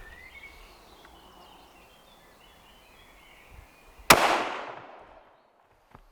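A single shot from a Weatherby Vanguard bolt-action rifle about four seconds in, its report fading out over about a second. Birds chirp faintly before the shot.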